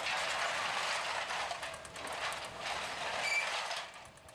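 Heavy machinery working a debris field: an excavator and trucks running, a steady noisy din with scattered clanks and a short high squeal about three seconds in. The din drops away near the end.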